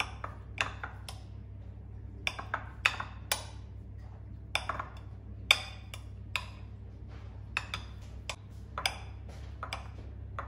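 A table knife cutting cold, hard butter into cubes on a glass plate, the blade knocking on the glass in irregular sharp clicks, about one or two a second.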